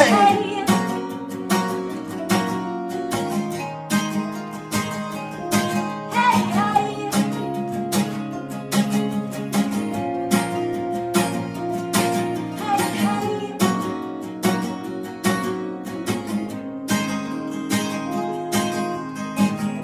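Two acoustic guitars strumming chords in a steady rhythm, with a voice singing a few phrases.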